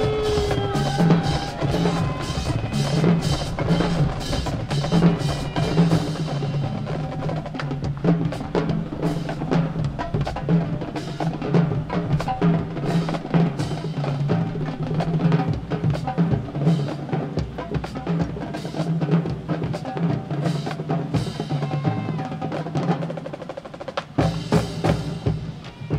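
Marching band drumline playing a fast percussion feature: snare drum rolls and rapid strokes over bass drums. The drumming thins out briefly near the end.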